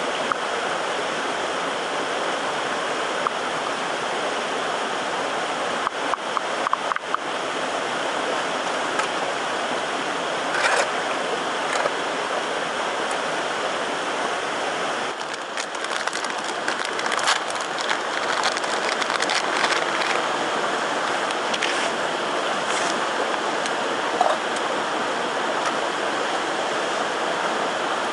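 A stream's steady rushing water, with scattered sharp clicks in the second half.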